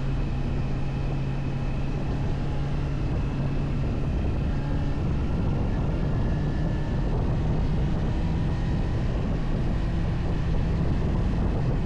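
Motorcycle engine running at a steady cruising pitch while riding, mixed with wind rushing over the onboard microphone.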